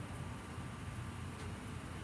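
Steady low background rumble with a few faint high ticks.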